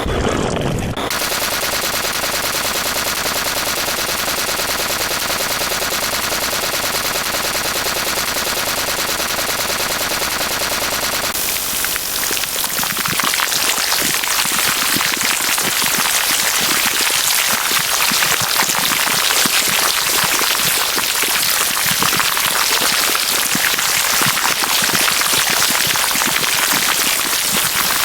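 Loud, dense noise from stacked sound effects: a steady hiss that turns about eleven seconds in into a harsher crackle full of rapid shot-like cracks.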